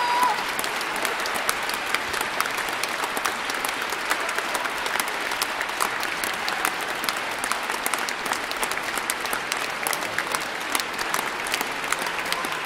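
A large concert-hall audience applauding steadily.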